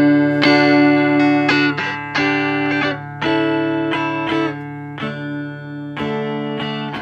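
Electric guitar played through a 5F6A (tweed Bassman-style) tube amplifier: chords and notes struck about once a second and left to ring out.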